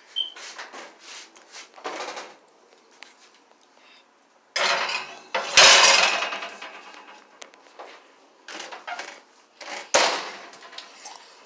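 Metal kitchen clatter as a baking tray and oven door are handled: a few light rattles, then a long scraping clatter with a heavy bang about halfway through, and another sharp knock near the end.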